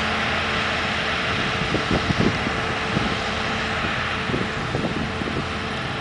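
Claas Lexion 770 TT combine harvester running at work while cutting wheat: a steady machine hum with a broad rushing noise. A few brief low bumps come about two seconds in and again near the fifth second.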